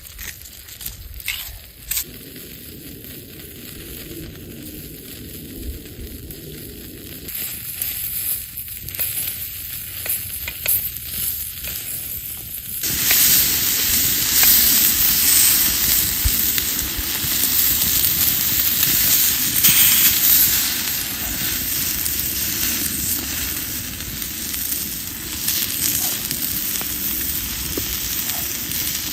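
Meat frying in a pan over a log fire, with a steady sizzle and a few pops. The sizzle jumps suddenly much louder about halfway through and stays loud.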